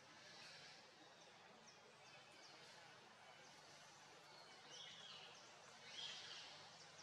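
Near silence: faint outdoor ambience with a few faint, short, high chirps, two of them slightly louder in the second half.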